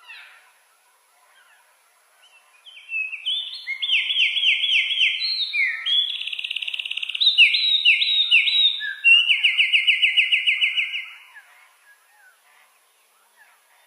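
A songbird singing one long song of varied phrases, each a quick run of repeated down-slurred notes, starting about three seconds in and stopping about eleven seconds in. Faint chirps of other birds sound before and after it.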